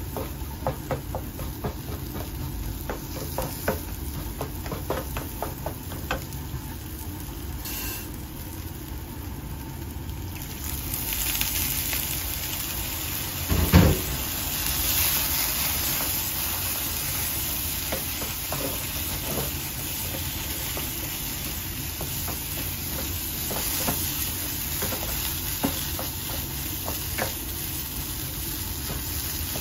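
Mashed potatoes frying in a nonstick pan, stirred and scraped with a wooden spatula in a run of light clicks and scrapes. About eleven seconds in, the sizzle grows louder and hissier as liquid goes into the hot pan, and a few seconds later there is one loud knock.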